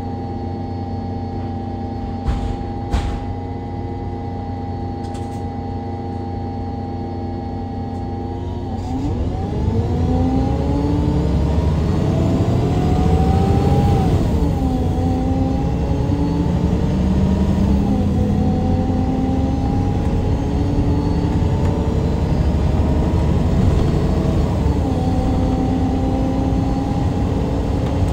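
MAN Lion's City G articulated bus's compressed-natural-gas engine, heard from directly above it, running steadily at first, then about eight seconds in getting louder and climbing in pitch under acceleration. The Voith automatic gearbox shifts up three times, each shift a sudden drop in engine pitch followed by a fresh climb.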